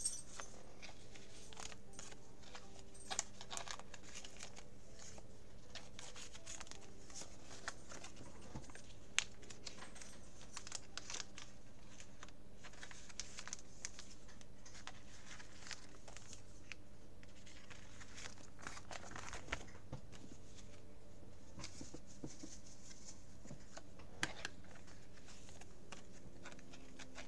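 Clear plastic binder sleeve pages crinkling and rustling as trading cards are handled and slid into their pockets, with scattered small clicks and taps, over a faint steady low hum.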